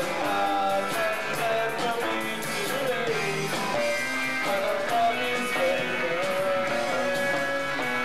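Live rock band playing, with electric guitar and bass guitar over drums and cymbals, and a wavering melody line on top. The recording is thin, with very little low end.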